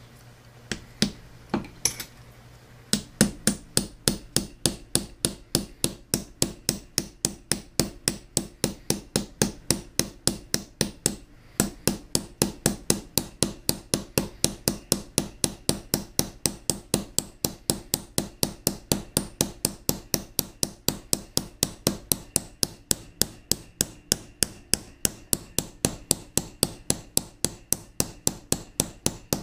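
Steady light hammer taps on a steel grinder spindle, driving a bearing onto the shaft, at about three taps a second. A few spaced taps come first, and the even rhythm starts about three seconds in, with one brief pause partway through.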